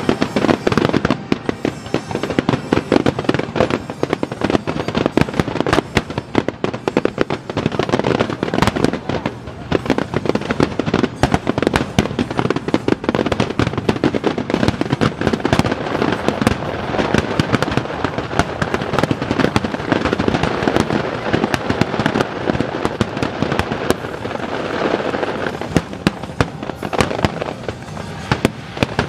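Fireworks display: a dense, continuous barrage of aerial shell bursts, bangs and crackling, with many reports overlapping.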